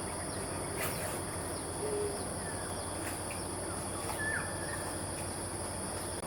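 Night-time outdoor ambience: a steady high-pitched drone of insects, with a short low hoot about two seconds in and a brief falling bird chirp about two-thirds of the way through.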